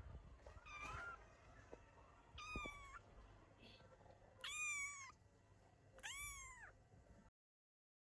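Young kittens mewing: four thin, high-pitched mews about one and a half seconds apart, the last two longer and louder. The sound cuts off abruptly shortly before the end.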